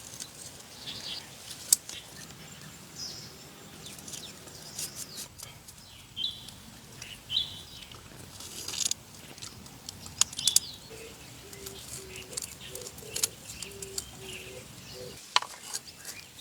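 Birds chirping in short high calls, with a few sharp clicks or taps among them. In the last few seconds a lower call repeats in short even notes.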